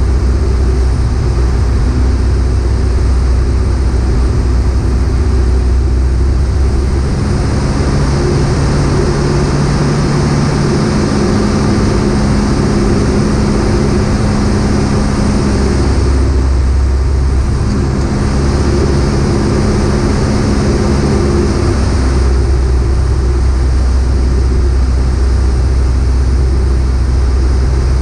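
Piper PA-38 Tomahawk's four-cylinder Lycoming engine and propeller running in flight, a loud steady drone heard from inside the cockpit with airflow hiss, its pitch shifting slightly a few times.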